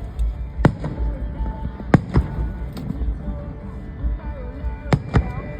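Fireworks exploding in the sky: five sharp bangs, a single one, then a quick pair, a pause, and another quick pair near the end. Music plays underneath.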